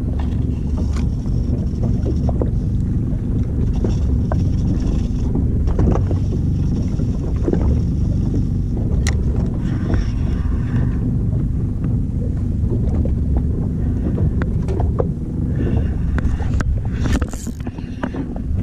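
Steady low rumble of a boat on open sea, with scattered light clicks and knocks.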